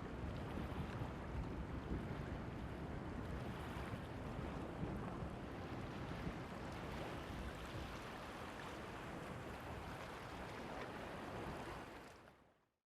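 Steady seaside background of surf and wind noise on the microphone, with no fireworks bursts; it fades out to silence near the end.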